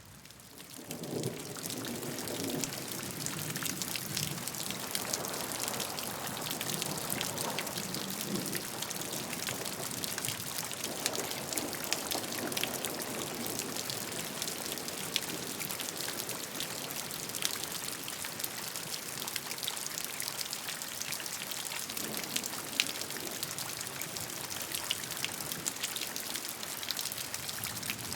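Steady rain, with many individual drops ticking close by over an even hiss. It swells up from a brief dip in the first second, then holds constant.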